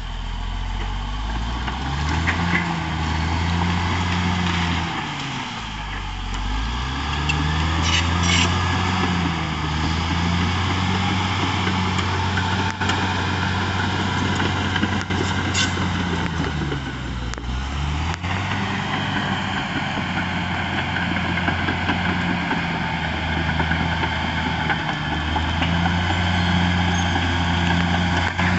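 Caterpillar D6R XL bulldozer's diesel engine working under changing load, its pitch dropping and climbing back several times, with a couple of sharp metallic clanks.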